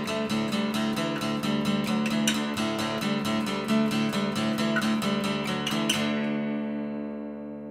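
Intro music on acoustic guitar: quick, even strumming that ends about six seconds in on a chord left to ring out and fade.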